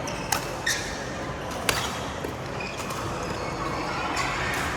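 Badminton racket hitting the shuttlecock during a rally: three sharp cracks in the first two seconds, the last the loudest.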